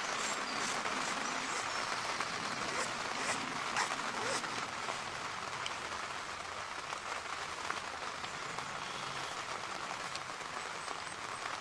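Heavy rain falling steadily, a dense even patter with individual drops ticking through it.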